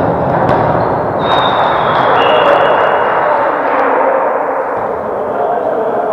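Football game sounds in an echoing hall: a sharp thud like a ball being kicked, over a steady noisy wash of crowd and players. A thin high whistle-like tone comes in about a second in and lasts a couple of seconds.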